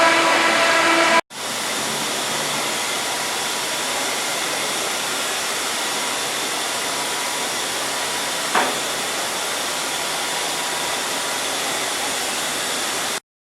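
Five-axis CNC machining centre running while machining a turbine part: a steady hissing machining noise with a faint steady whine. In the first second a whining tone with several pitches is heard, then the sound breaks off briefly and resumes as the even hiss, with one short sharp sound about eight and a half seconds in, before cutting off abruptly near the end.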